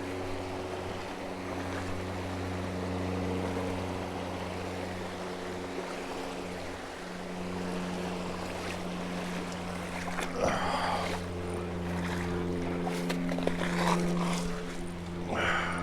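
River water rushing and wind on a chest-mounted microphone, over a steady low hum. Two brief louder rustles or splashes come about two-thirds of the way in and near the end.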